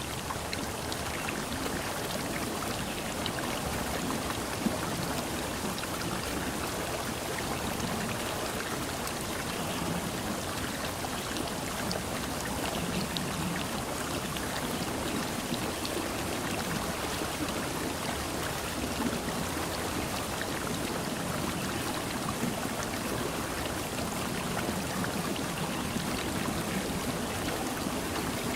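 Steady rush of water, with scattered small ticks like drops.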